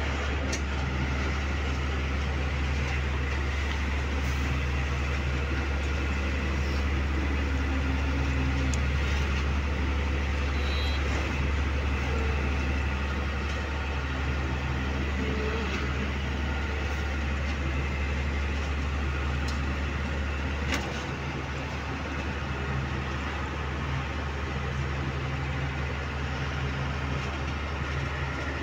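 Truck diesel engine and road noise heard from inside the cab while cruising along a highway: a steady low drone. A single sharp click about two-thirds of the way through, after which the drone drops slightly.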